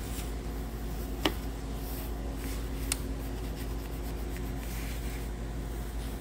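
Gloved hands handling plastic engine-bay electrical connectors and hoses: rubbing and handling noise with two short sharp clicks, about a second and three seconds in, over a steady low hum.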